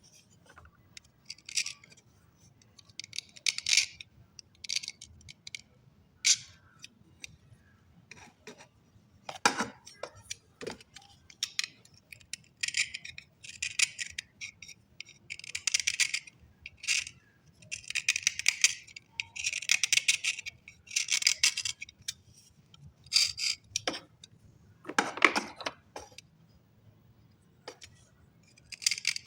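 Slate pencils being handled, clinking and scraping against one another in a series of short rattling bursts, with a few sharper knocks.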